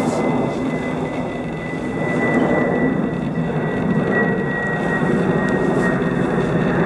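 Steady droning rumble of an aircraft overhead, with a thin high whine that slowly drops in pitch.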